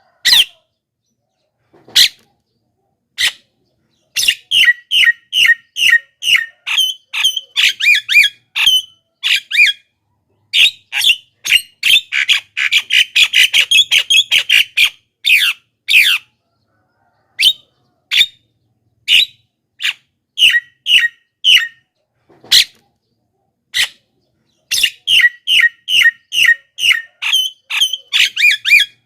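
Javan myna (jalak kebo) calling: runs of short, loud notes several a second, packed densely for a few seconds about halfway through, with single calls spaced out in between.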